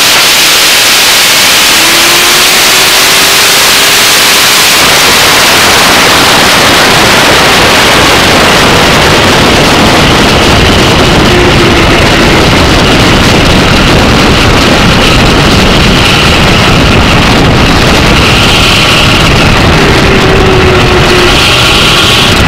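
A nitro-burning A/Fuel dragster making a pass, heard from a camera mounted on the car and loud throughout. The engine runs at full throttle for about the first five seconds. Then the engine shuts off and rough wind and rumble carry on as the car slows on its parachutes.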